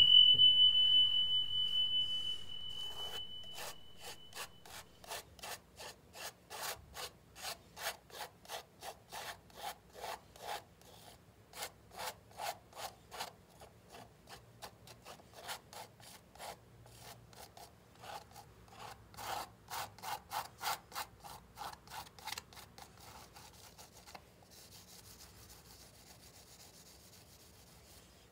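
A metal palette knife scrapes acrylic paint across a stretched cotton canvas in quick repeated strokes, about two or three a second; the strokes stop a few seconds before the end. It opens with a single high ringing tone that fades over a few seconds, the loudest sound here.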